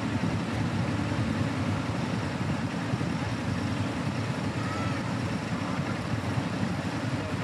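Steady low rumble of outdoor background noise, with no distinct events standing out.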